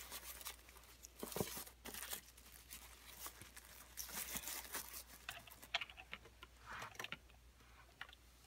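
Faint, irregular rustling and crinkling of individually wrapped panty liners as a hand flicks through them.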